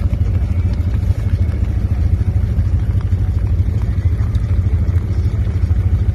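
ATV engine idling steadily, close to the microphone, with a fast even low rumble.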